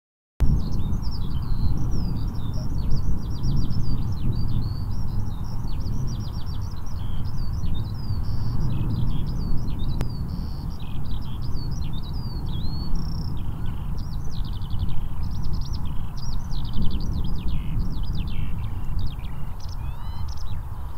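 A small songbird singing one long, unbroken song of rapid, varied high chirps and trills, over a steady low rumble.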